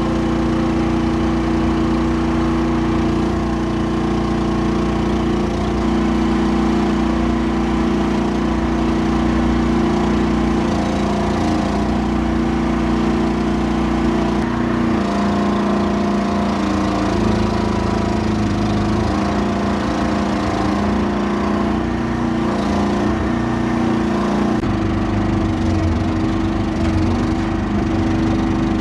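Small excavator's engine running steadily under way, its note shifting about halfway through and again near the end.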